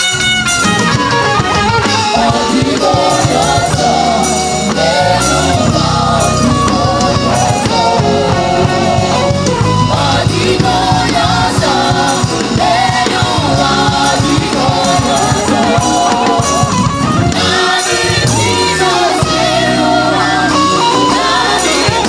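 Live gospel band music: electric bass, drum kit and guitar under singing voices, with a saxophone playing as it begins. The bass slides between notes twice.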